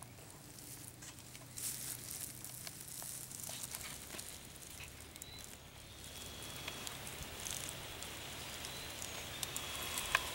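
Footsteps crunching slowly through dry leaf litter, soft crackles and rustles that grow a little louder after about six seconds.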